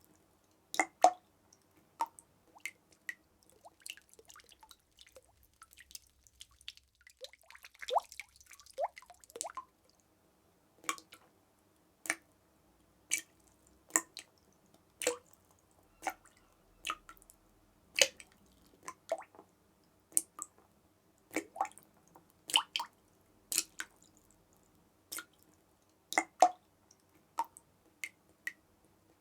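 Water dripping, single drops falling at an irregular pace of roughly one a second, each a short sharp plink. About a quarter of the way in, a quicker run of drips gives short plops that rise in pitch.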